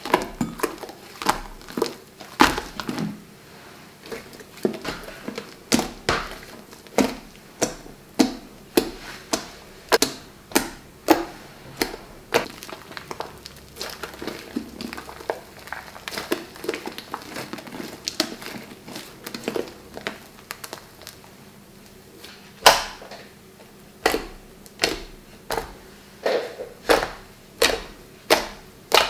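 Glossy slime being squeezed, kneaded and pressed by hand, giving a string of wet clicks and pops, roughly one or two a second. The pops come louder and more regularly near the end, as fingers press into the slime spread flat.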